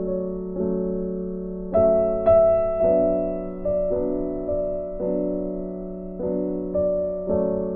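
Slow background piano music: notes and chords struck about once a second, each fading away, over a held low note.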